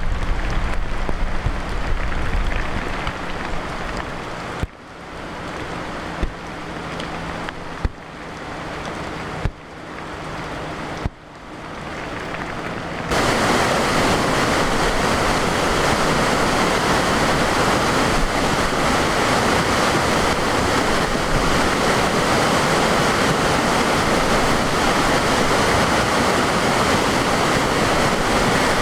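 Floodwater rushing in a storm-swollen mountain creek, a steady loud rush. The first part is quieter, in several short cut-together stretches with a faint low hum, and the full loud rush sets in about halfway through.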